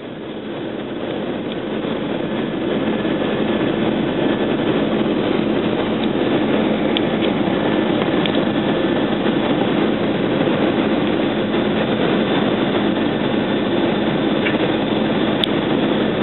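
Steady cabin noise inside an Airbus A320 in flight: the even drone of its engines and rushing air. It rises over the first few seconds, then holds level.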